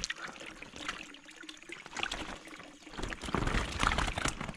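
Water pouring and trickling out of a plastic bag into a pond, with small splashes as young fish slip out with it; the pouring gets louder about three seconds in.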